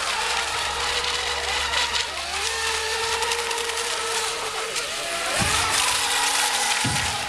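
Several electric RC racing boats running together, their motors whining at different pitches that rise and fall as the boats pass and turn. Two low thuds come near the end.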